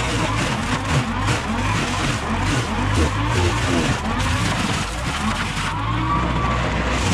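Compact tractor running under load with a front-mounted brush mulcher chewing through shrubs and branches. The engine note dips and recovers several times as the head bites into the wood, over a rough crackle of shredding brush.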